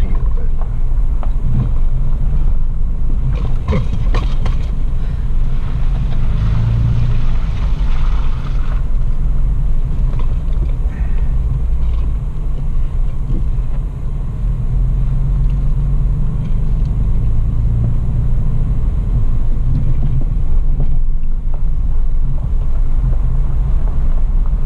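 Toyota FJ Cruiser's engine and drivetrain rumbling low and steady inside the cabin as it crawls along a rough dirt track, the engine note swelling and easing with the throttle. A few short knocks and rattles come about three to four seconds in.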